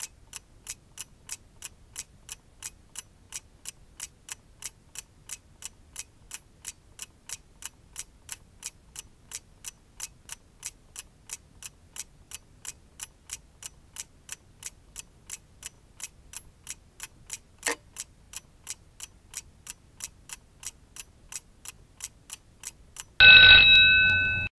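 Clock ticking steadily, about two ticks a second, with one louder click about two-thirds of the way through. Near the end a bell rings loudly for about a second.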